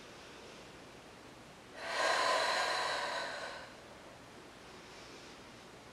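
A woman taking one long, deep breath, about two seconds in and lasting just under two seconds: the slow breathing of a held Pilates back-extension.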